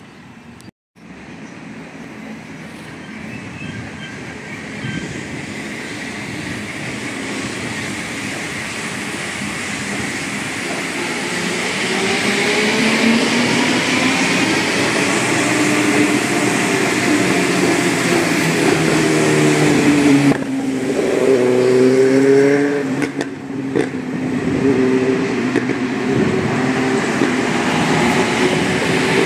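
Rubber-tyred Santiago Metro Line 1 trains running through an open cutting, growing steadily louder over the first dozen seconds as they approach. Then a loud, steady rumble with traction-motor whine that glides up and down in pitch.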